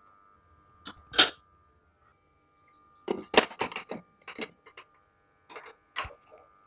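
Aluminium pressure cooker on a gas burner giving a series of short, sharp bursts: one loud one about a second in, a quick cluster of them a couple of seconds later, and two more near the end.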